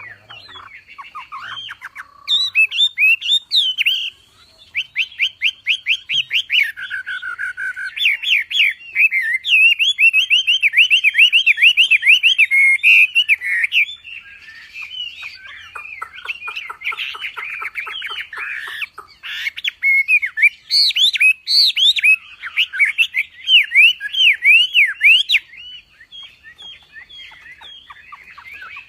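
A wambi songbird singing loud, fast runs of repeated chirping and whistled notes, phrase after phrase with short breaks, turning quieter near the end.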